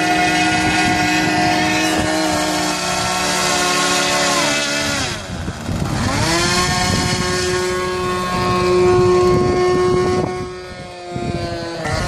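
Two-stroke glow engine of a radio-controlled model airplane running at high speed. About halfway through, its pitch drops steeply, then climbs back and holds steady. Near the end the pitch dips briefly once more.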